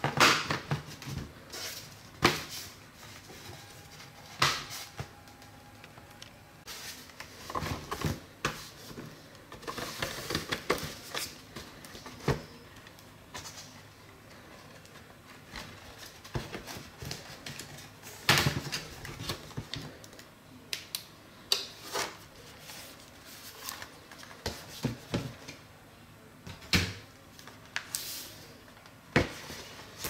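Plastic snap-fit clips of a Dell Inspiron 5000-series laptop's case popping loose one after another as a guitar pick is worked along the seam, making sharp clicks at irregular intervals as the casing comes apart.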